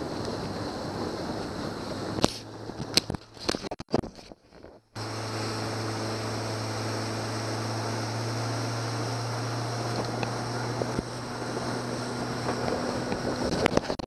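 Outboard motor running at speed with a steady hum as the boat runs through choppy water, with wind on the microphone. About two seconds in there are several sharp knocks and the sound nearly cuts out, then the motor's steady hum resumes; more knocks come near the end.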